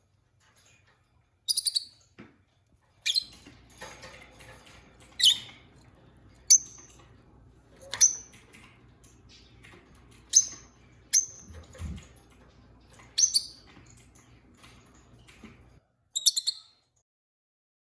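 Peach-faced lovebirds giving short, sharp, high-pitched chirps, about a dozen spaced irregularly a second or two apart. A faint low hum runs behind them through most of it.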